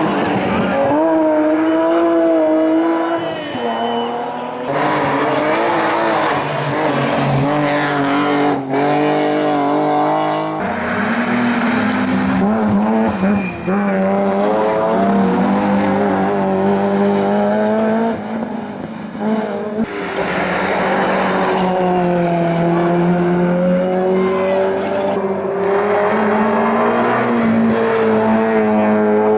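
Hillclimb competition cars driven flat out, engines revving up and falling back through the gears over and over. The sound switches abruptly from one car to another three times.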